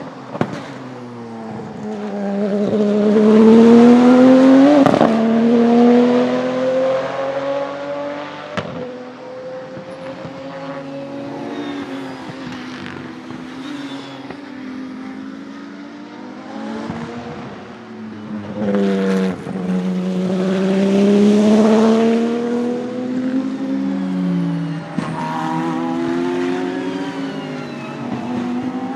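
The 3.9-litre twin-turbo flat-six of a Porsche 997 GT2 RSR race car at speed. Its pitch climbs under acceleration and falls away in between, with sharp clicks at several gear changes and a faint high turbo whistle above the engine.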